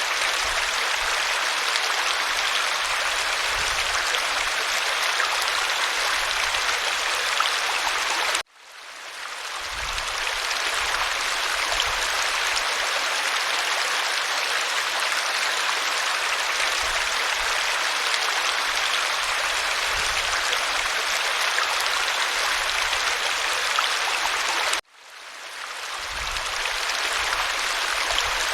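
Waterfall rushing steadily. About a third of the way in and again near the end it cuts out abruptly and fades back in over a second or so, where the looped recording restarts.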